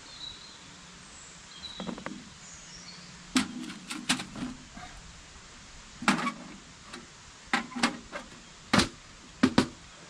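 Irregular sharp knocks and clicks, about nine in all and some in quick pairs, from objects being handled, over a faint outdoor background with a few thin high chirps in the first few seconds.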